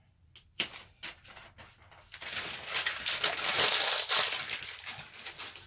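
Thin plastic protective film crinkling and crackling as it is peeled from a new laptop screen, starting about two seconds in after a few light clicks and dying away near the end.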